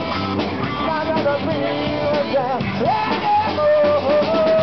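Live rock band playing: electric guitars and drum kit with a lead vocal. The melody swoops and then holds one long note near the end.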